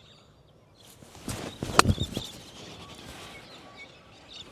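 A golf wedge swung through grass and striking the ball off the turf, one sharp strike a little under two seconds in, with a brief swish just before it. Birds chirp faintly in the background.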